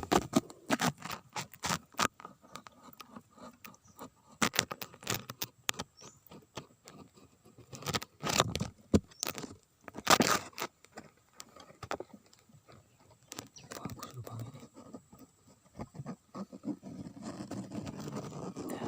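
Irregular scraping, tapping and rustling close to the microphone: handling noise as the baited eel line is pushed into a hole among stones. There are a few sharper, louder knocks, and the rustling grows denser near the end.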